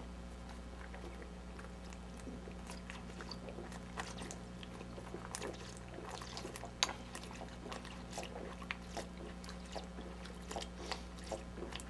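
Faint gulping and small clicks of people chugging beer from glass bottles, over a steady low hum.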